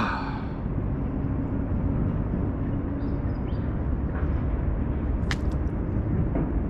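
Steady low outdoor rumble, with one sharp click about five seconds in.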